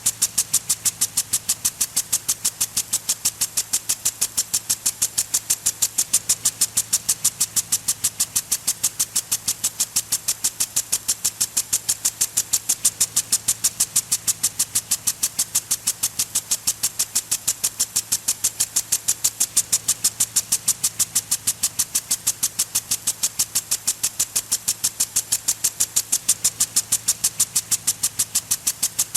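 Impact sprinkler ticking steadily, its swinging arm striking the water jet several times a second over the hiss of the spray.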